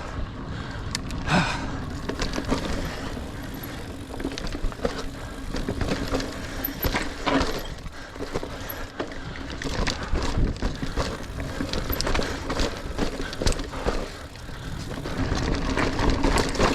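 Niner Air 9 RDO 29er hardtail mountain bike being ridden over rough singletrack: a steady rumble of tyres over dirt and roots, with frequent clicks, knocks and rattles from the bike and chain.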